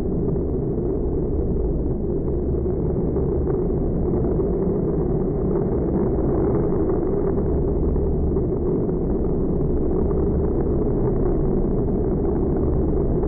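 Bigfoot monster truck's engine running hard and steady while the truck spins donuts.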